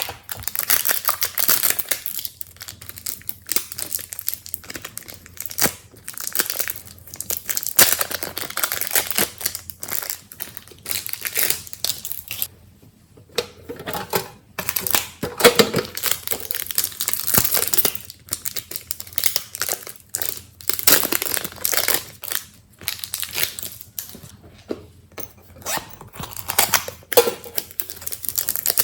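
Slime being squished, kneaded and stretched by hand, giving irregular wet crackles and pops.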